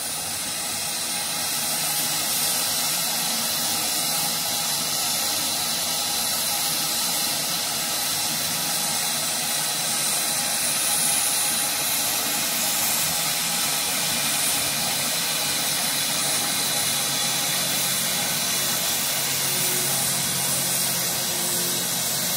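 Steam locomotive hissing steadily as it vents steam, swelling over the first couple of seconds and then holding level.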